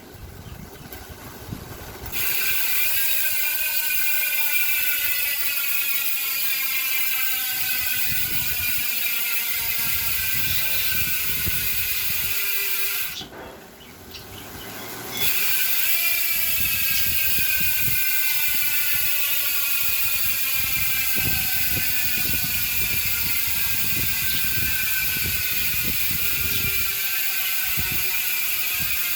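Saturn Calypso aluminium bicycle hub's four-pawl freehub ratcheting as the wheel freewheels: a fast, loud clicking buzz whose pitch slowly falls as the wheel slows. It starts about two seconds in, breaks off for a couple of seconds near the middle, then starts again and slows once more.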